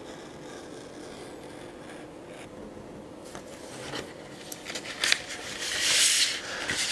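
Scissors cutting through stiff brown kraft pattern paper, with the sheet rustling as it is handled. Faint at first, the crisp cutting and rustling grow louder in the second half, loudest shortly before the end.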